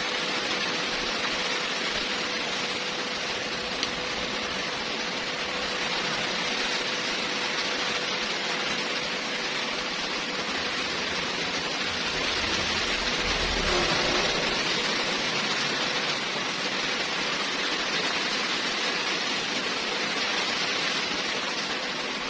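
Electric arc welding, most likely stick welding: the arc gives a steady crackling hiss, like frying.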